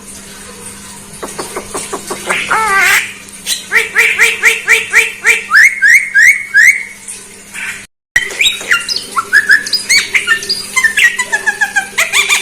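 Javan myna calling: harsh squawks and clicks, then a run of quick, repeated rising whistled notes at about three or four a second. The sound cuts out briefly about eight seconds in, then comes back as varied chirps and whistles.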